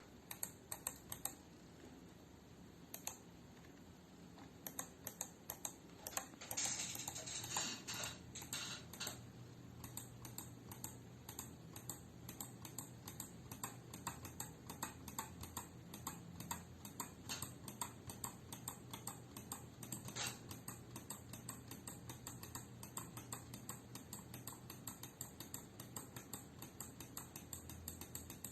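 Dareu A960s mouse buttons clicked over and over: scattered clicks at first, a quick flurry about six to nine seconds in, then a steady run of about three or four clicks a second.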